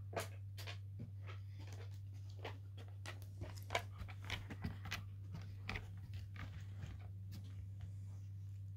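Rough collie puppy gnawing a rawhide bone, chewing to ease his teething: irregular crunching, clicking bites, loudest a little under four seconds in and thinning out near the end. A steady low hum runs underneath.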